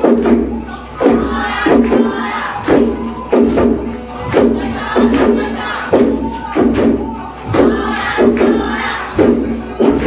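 Loud live band playing yosakoi dance music with a strong beat about every three-quarters of a second, and the dancers' group shouts over it.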